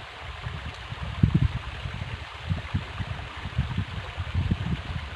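River water running, with irregular low thumps, the loudest about a second and a half in.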